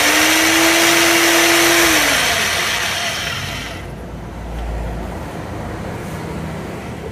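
Electric demolition hammer with a flat chisel bit running with a loud motor whine, then winding down and stopping about three to four seconds in.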